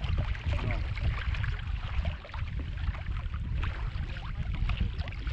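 Water lapping and splashing against a kayak's hull, with wind buffeting the microphone as a steady low rumble.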